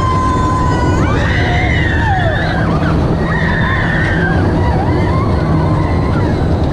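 Test Track ride vehicle on its high-speed power-test run: a loud, steady rush and rumble, with wavering high-pitched sounds sliding up and down over it.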